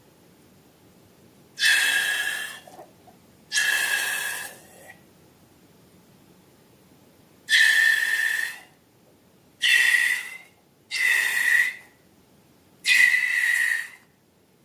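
Air being let out of a balloon through its stretched neck, squealing in six separate bursts of up to about a second and a half, each one high-pitched and steady with a hiss.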